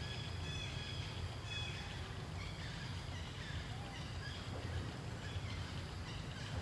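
Forest ambience: a steady low rumble with faint, brief bird chirps and whistles scattered through.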